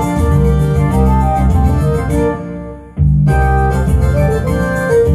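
Trumpet playing a melody over a full accompaniment with a strong organ-like keyboard sound and bass. A little over two seconds in the music fades away almost to nothing, then everything comes back in at once about three seconds in.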